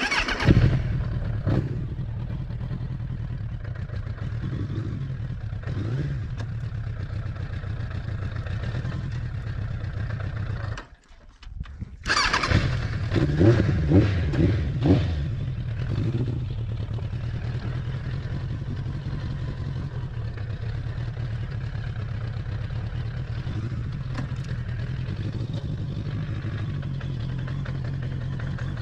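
Suzuki Bandit 1200S inline-four motorcycle engine running steadily at low revs. It drops away briefly about eleven seconds in, comes back suddenly, and gives a few quick throttle blips before settling back to a steady run.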